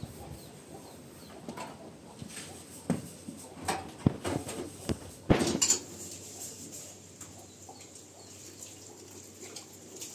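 A run of knocks and clatter from objects being handled, loudest a little past the middle, with faint bird chirps in the background.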